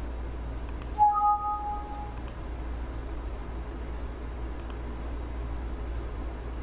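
Steady low electrical hum and hiss. About a second in, a short two-tone electronic chime sounds, the higher note fading first. There are a few faint clicks in pairs.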